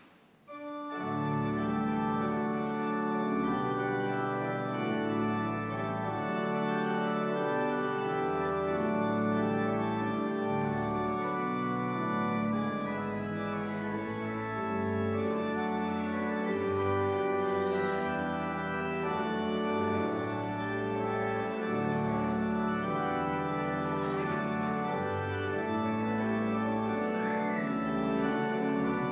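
Organ playing slow, sustained chords, starting about a second in.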